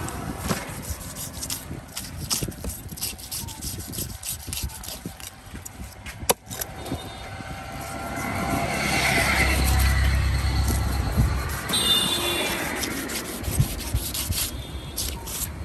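A large curved knife scraping the scales off a big fish on a wooden chopping stump, in rapid repeated strokes with a sharp click near the middle. A low rumble swells and fades midway.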